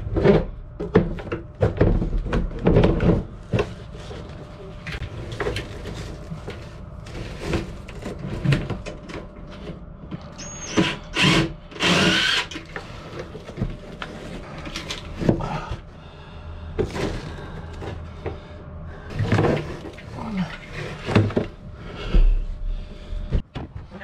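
Cordless drill-driver running in short bursts to back out a screw, among irregular knocks, clatters and scrapes of tools and hands working on a bilge-pump float switch in a cramped fibreglass boat compartment.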